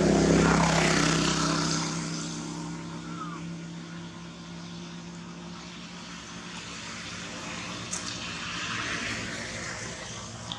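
A motor vehicle's engine passing close by, loudest in the first second and fading away over the next two. Another softer passing swell comes around nine seconds in, and a short chirp sounds about three seconds in.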